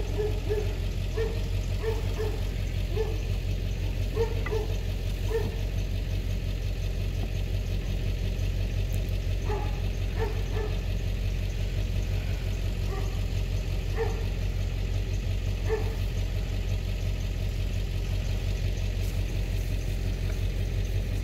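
A vehicle engine idling steadily, most likely the tow vehicle hitched to the camper. A series of short, faint high calls sounds over it in the first few seconds.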